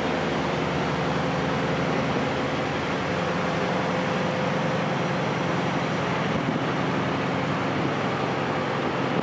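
Steady drone of a ferry under way heard from its open deck: a constant engine hum under an even rushing noise of air and water.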